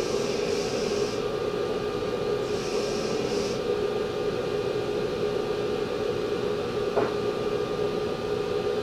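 Wilton belt grinder running with a steady hum while a steel fullering die blank is ground against the belt over the contact wheel, with a hiss of grinding in two stretches of about a second each near the start. A single sharp click about seven seconds in.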